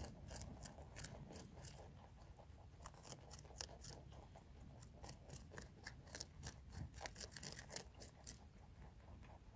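Several rabbits biting and chewing raw red cabbage: faint, irregular crisp crunches, several a second, thinning out near the end.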